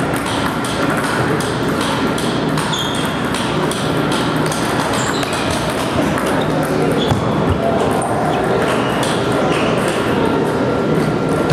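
Table tennis balls clicking against paddles and tables, many irregular ticks from several tables at once, over a steady hubbub of indistinct voices in a large hall.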